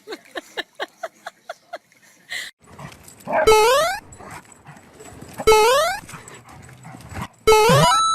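A dog vocalising: a quick run of short yips, then three loud barks about two seconds apart, each rising in pitch.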